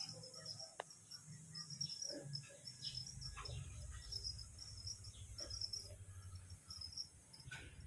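Crickets chirping in a steady train of high, rapid pulses. A low hum sits beneath from about three seconds in.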